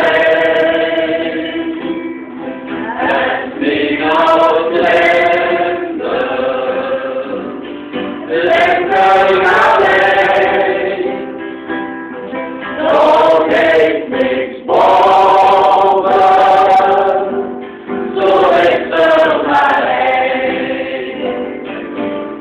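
Church choir singing together in phrases of held notes, with short breaks between the phrases.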